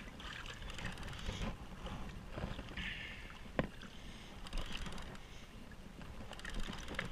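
Sea water sloshing around a kayak's hull with wind buffeting the microphone, and a single sharp click about three and a half seconds in.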